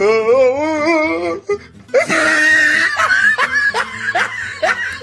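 A drawn-out, wavering voiced cry for the first second or so, then laughing in short bursts, over background music.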